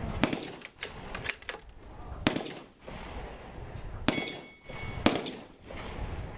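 .22 LR rifle fire: a cluster of lighter sharp cracks in the first second and a half, then three louder shots over the next three seconds.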